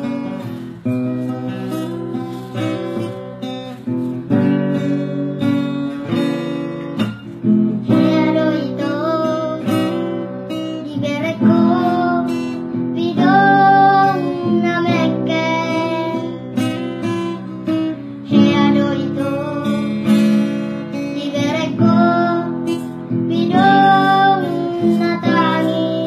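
A song with strummed acoustic guitar, joined by a singing voice about eight seconds in.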